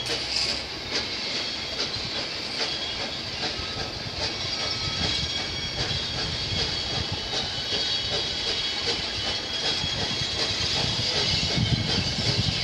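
USA S160 2-8-0 steam locomotive working a train toward the listener, its exhaust and the rumble of wheels on the rails growing steadily louder as it approaches.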